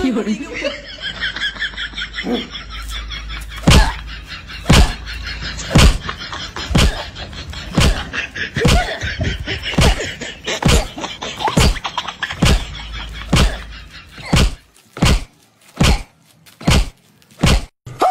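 A run of heavy thumps of a man's seat slammed down onto a concrete post, about one a second and speeding up to about two a second near the end. Under the first two thirds runs a continuous high-pitched sound that stops about fourteen seconds in, leaving the last thumps with silence between them.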